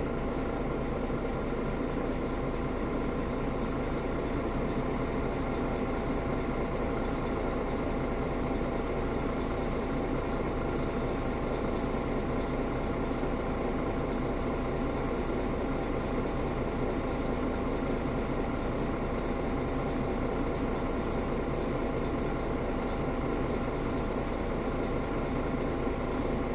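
Mercedes-Benz Citaro G articulated bus engine idling at a steady pitch, heard from inside the passenger cabin while the bus stands still.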